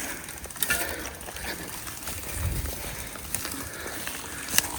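Shulz BDC touring bicycle being ridden over a rough trail: the bike's parts rattle with many irregular sharp clicks and knocks. A low rumble swells about halfway through.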